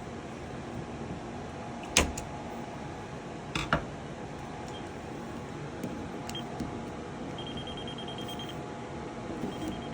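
Two sharp clicks or knocks, about two seconds in and again near four seconds, over a steady background hum. A faint, high, rapidly pulsing beep comes in near the end.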